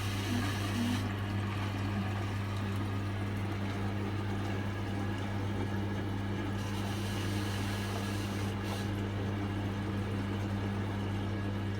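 Hotpoint washing machine running mid-wash cycle: a steady motor hum with water swishing in the drum.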